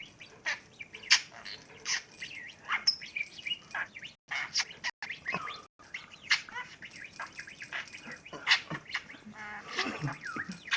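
Male budgerigar chattering and warbling: a rapid, continuous run of short chirps, clicks and quick rising and falling notes. This is the chatter a male budgie makes during mating behaviour against a perch.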